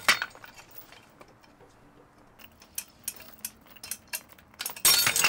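A short metallic rattle at the start, then scattered faint clicks while a PLA 3D-printed test hook takes load on a crane scale. Near the end comes a loud metallic clatter as the hook snaps at about 80 kg and the steel S-hook and chain jangle.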